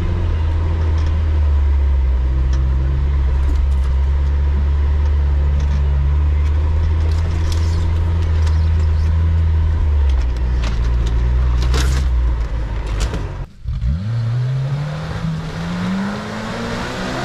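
Suzuki off-road 4x4 engine running at low, steady revs, heard from inside the cab, with a few knocks and rattles as it crawls over the rough forest track. After a cut about 13 seconds in, an off-road vehicle's engine is heard from outside, revving up and then falling back, with wind on the microphone.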